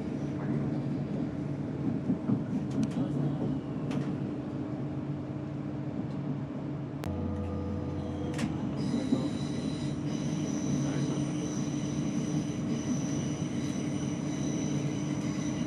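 Passenger train running at speed, heard from inside the carriage: a steady rumble with a low hum. About seven seconds in a deeper hum comes in, and soon after a high, steady whine joins and holds.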